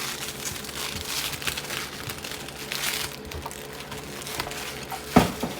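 Plastic card-pack wrappers and box packaging being crumpled and handled, a crinkly rustling that fades after about three seconds, with one sharp thump about five seconds in.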